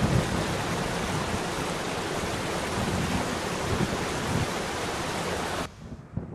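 Steady rushing of Paradise Falls, a waterfall spilling into a rock pool, cutting off abruptly near the end.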